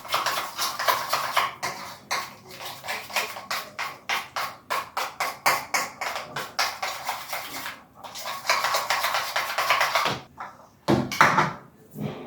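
Quick repeated knocking or tapping on a hard kitchen work surface, about three to four knocks a second, with short breaks about eight seconds in and again near ten seconds.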